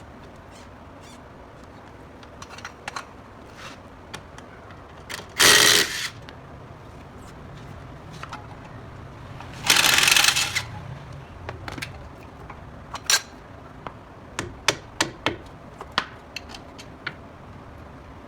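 Workshop tool work on metal parts: scattered sharp clicks and clinks, with two loud hissing or rattling bursts, each under a second long, about five and ten seconds in.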